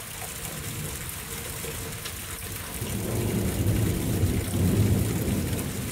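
Steady hiss of rain, with a low rumble swelling up about halfway through and easing off near the end.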